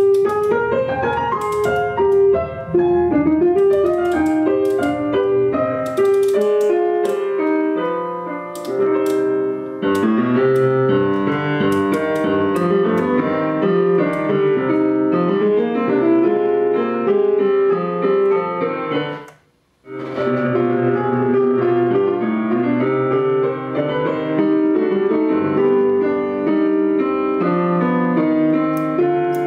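Piano music played back through a McIntosh C28 preamplifier and MC 2105 power amplifier and heard from the loudspeakers. The music drops out for a moment about two-thirds of the way through, then resumes.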